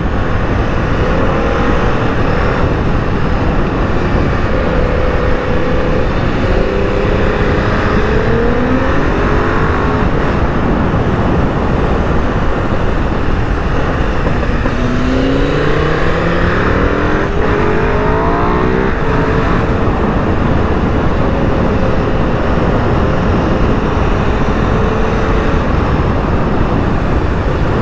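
V-twin motorcycle engine heard from the rider's own bike, its pitch rising and falling as it accelerates and eases off through the bends, under a steady rush of wind noise on the helmet microphone.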